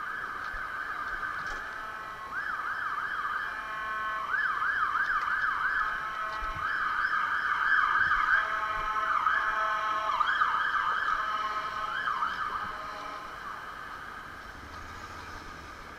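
Emergency vehicle siren yelping in rapid rising-and-falling sweeps, with a stepped alternating tone beneath. It grows louder toward the middle and fades over the last few seconds.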